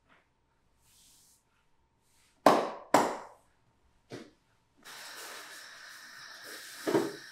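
Sharp hand slaps on a back during a massage: two loud smacks about half a second apart, a softer one a second later, and another near the end. A steady hiss with a faint whine comes in at about the middle and runs on.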